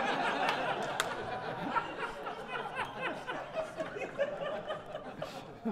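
A roomful of people laughing and chattering at once, dying down toward the end.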